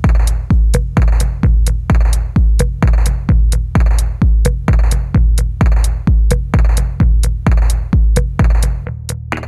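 Electronic music laid over the footage: a steady drum-machine kick about twice a second with sharp hi-hat ticks. The kick drops out near the end.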